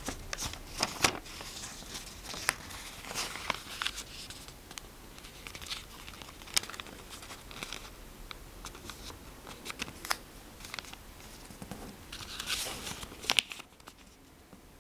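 A sheet of origami paper being folded and creased by hand: irregular crinkling and sharp crackles as the paper bends and fingers press and run along the folds. The paper sounds stop about a second before the end.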